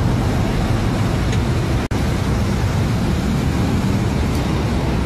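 Steady road and engine noise of a moving car, heard from inside the vehicle as on a dashcam, with a momentary dropout about two seconds in.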